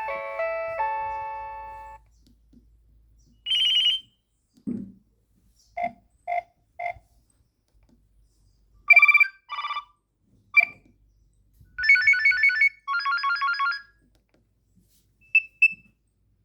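Nokia 3120 mobile phone playing its built-in tones through its small speaker: a polyphonic ringtone melody fades out in the first two seconds, followed by a series of short electronic beeps and trilling alert tones, some in groups of two or three, separated by pauses.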